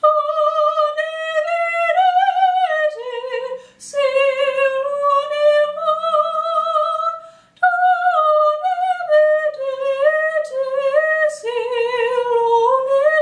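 A woman singing solo and unaccompanied in an operatic soprano voice: long, high held notes with a wide vibrato, with brief breaths about four and seven and a half seconds in.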